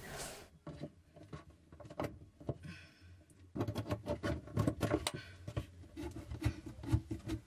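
Hands fitting a brass compression isolation valve onto white plastic Speedfit pipe: small clicks and rubbing, growing busier about halfway through.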